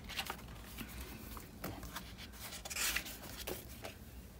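Paper sticker sheets being handled: light taps and paper rustles, with a louder brief scrape of paper about three seconds in.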